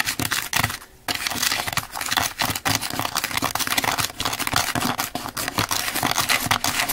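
Small utensil stirring candy powder and water in a plastic candy-kit tray: rapid, continuous scraping and tapping against the plastic, with a short pause about a second in.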